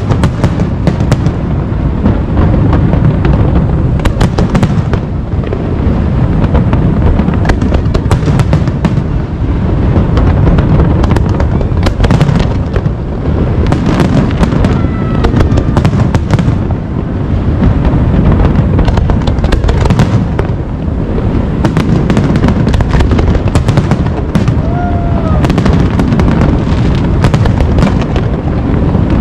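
A large aerial fireworks display: many shells exploding in quick succession, a continuous low rumble with sharp cracks and crackling all through, and a couple of short whistles.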